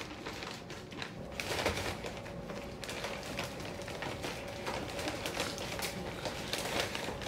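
Close-up eating sounds: chewing and handling food, made up of irregular small clicks and crackles.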